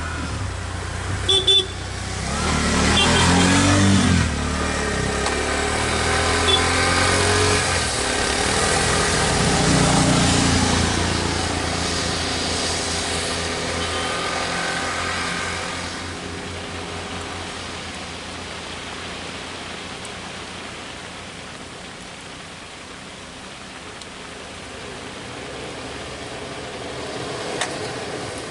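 Road traffic: motor vehicle engines running and passing, loudest in the first half and then fading, with two short sharp peaks about a second and a half in.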